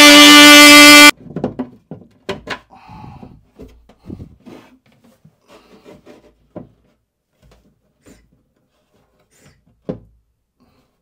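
Bosch oscillating multi-tool cutting plywood with a loud, steady buzzing whine that stops suddenly about a second in. After it come scattered knocks, clicks and rubbing as the toilet pump's protruding part is moved up and down through the enlarged hole, now clearing the wood.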